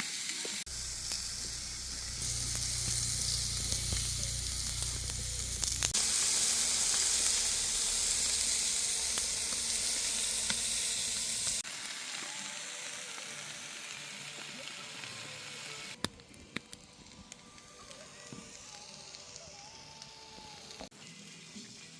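Burgers sizzling as they fry: a steady, dense hiss that jumps in level a few times, loudest in the middle and fainter over the last several seconds. A low hum sits under the sizzle for the first few seconds.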